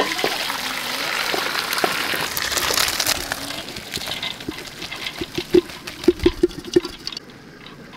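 Starchy cooking water gushing from a pot of boiled rice into a perforated steel colander, easing off as the wet rice slides in. Near the end comes a quick run of sharp metal knocks, about eight in two seconds.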